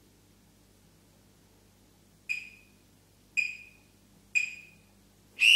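Workout interval timer counting down: three short high beeps about a second apart, then a longer, louder beep near the end that marks the end of the hold.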